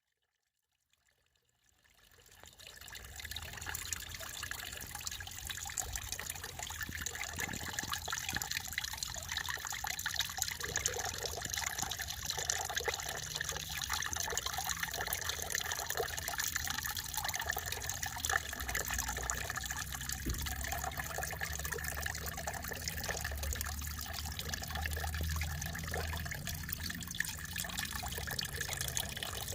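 Water fountain splashing steadily, a continuous trickling, fading in over the first couple of seconds.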